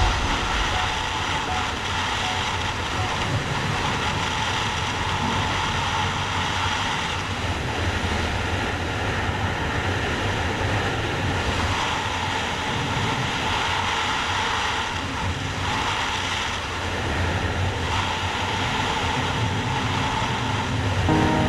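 Steady wind rush over the microphone of a Yamaha MT-03 motorcycle at highway speed, about 130–140 km/h, with engine and road noise underneath.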